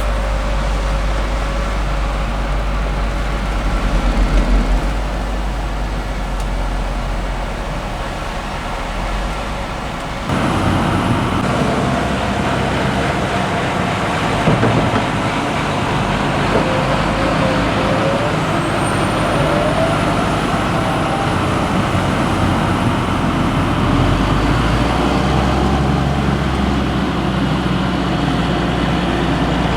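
Diesel engines of heavy harvest machinery running steadily under load, with the sound changing abruptly about ten seconds in.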